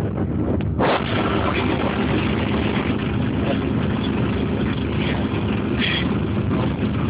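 Snowcat engine running steadily as it climbs, with a sharp knock about a second in.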